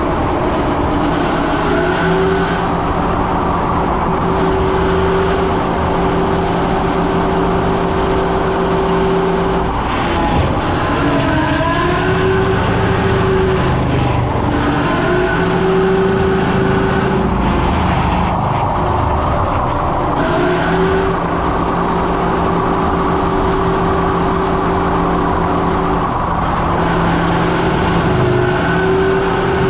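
Heavy diesel engine running steadily, its pitch dipping and recovering several times.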